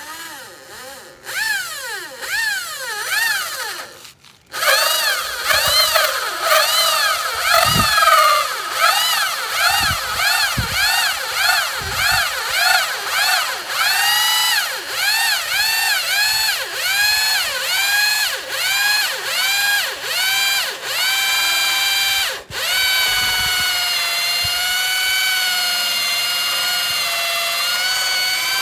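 Corded electric drill boring into a wooden gate board to cut the hole for the lock. Its motor whine rises and falls in pitch over and over, about one and a half times a second. It stops briefly twice, and after the second stop, near the end, it runs at a steady speed.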